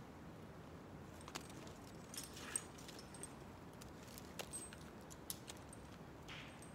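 Faint steady hiss with scattered light clicks and brief high crackles, the sharpest click about two and a half seconds in.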